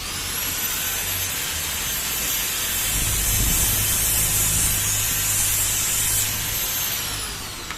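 Small electric grinder spinning up with a high whine and a steady hiss as it grinds a piston ring to fit, then winding down near the end.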